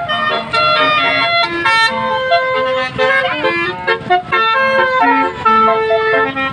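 Bus telolet horn, a multi-tone musical air horn, playing a quick melody of changing notes, with a short siren-like wail about three seconds in.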